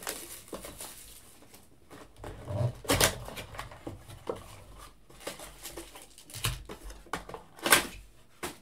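A cardboard trading-card blaster box being unwrapped and opened by hand: plastic wrap crinkling and cardboard flaps rustling, with sharp knocks about three seconds in and again near the end.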